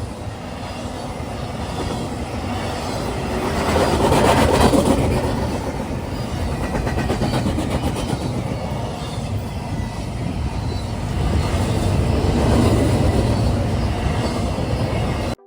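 Freight train rolling past, a steady rumble of cars with wheels clicking over the rails, swelling twice, then cutting off abruptly near the end.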